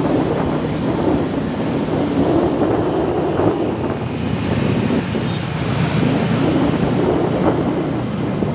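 Wind buffeting the microphone over a steady, dense rumble, with no horn tones.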